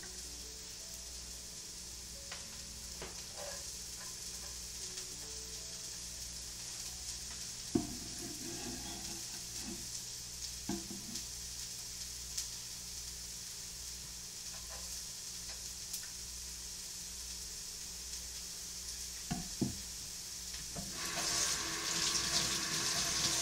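Shallots sizzling steadily as they fry in olive oil in a large pan, with a few sharp knocks of a utensil stirring them. Near the end a tap starts running.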